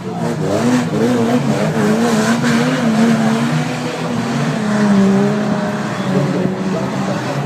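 Several banger racing cars' engines running hard around the track, their pitch rising and falling as the drivers rev, lift and accelerate.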